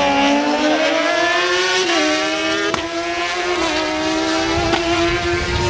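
Two 1000 cc inline-four superbikes, a BMW S1000RR and a Suzuki GSX-R1000, running hard at high revs in a drag-race launch. The pitch climbs slowly, with a couple of small steps about two and three seconds in.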